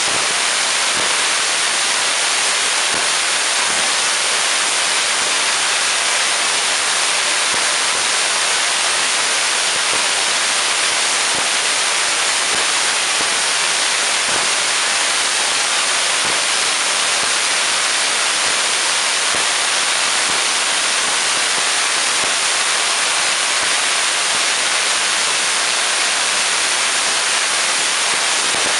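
6-inch spark gap Tesla coil, fed by two 12,000-volt 60-milliamp transformers, running continuously. Its spark gap and the streamers arcing from the breakout point make a loud, steady sizzling noise.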